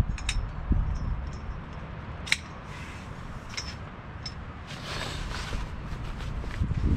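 Camping cot being assembled by hand: a sharp click about two seconds in as its metal poles are handled, then the cot's fabric rustling around five seconds in, over low bumping and knocking.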